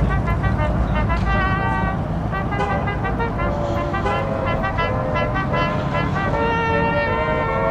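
Band music with brass instruments playing a melody, the notes stepping up and down.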